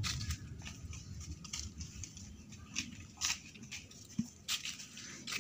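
Footsteps on a dirt path strewn with dry leaves, heard as irregular light clicks and rustles, with a few sharper ones past the middle.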